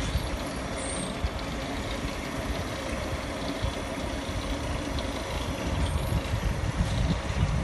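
Continuous band sealing machine running: its drive motor, conveyor belt and sealing bands make a steady mechanical hum.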